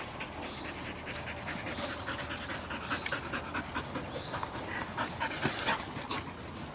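Dogs panting hard as they run and play, their breaths broken by many short quick ticks that are busiest in the middle.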